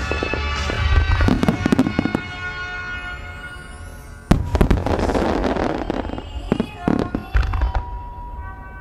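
Aerial fireworks shells bursting in a string of booms, with one big bang about four seconds in followed by a second or two of dense crackle, then a few more booms near the end, over music.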